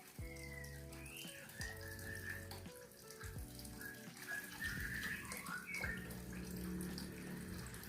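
Water splashing as a small bird bathes, with short whistled bird chirps, over background music with held notes.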